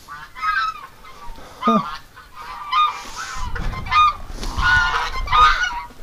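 Domestic geese honking repeatedly in short calls. From about halfway through, a low rumble of wind builds under the calls.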